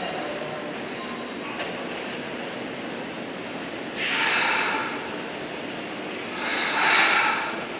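Toyama Chiho Railway 14760-series electric train running on the rails, heard from the front of the train as a steady rumble. Two loud hissing bursts come about four and about seven seconds in.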